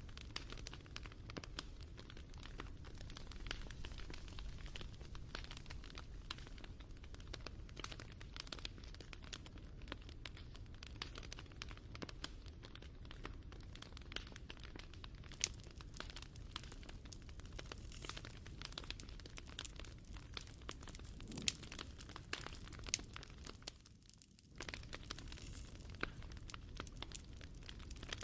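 Wood fire crackling, with frequent sharp pops and snaps over a low steady rumble; the sound dips briefly about four seconds before the end, then carries on.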